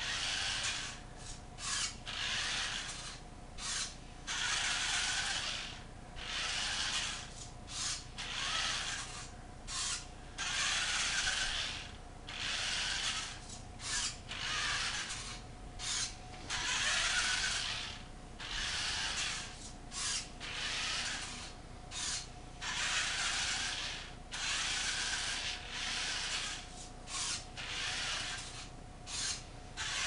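Small electric drive motors and gearboxes of a toy all-wheel-drive RC rock crawler truck running in short bursts, stopping and restarting every second or two as the Arduino-controlled truck backs up, turns and drives forward to avoid obstacles.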